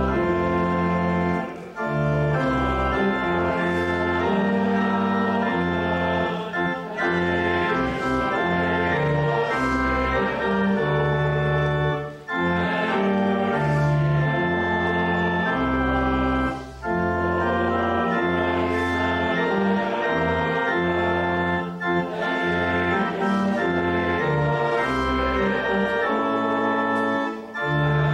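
Church organ playing slow, sustained chords, with short breaks between phrases.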